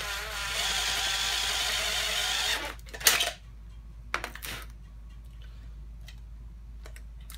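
Makita 18V cordless drill running a step drill bit through thin sheet metal for about two and a half seconds, enlarging a hole a little at a time. A sharp clack about three seconds in and a softer knock a second later.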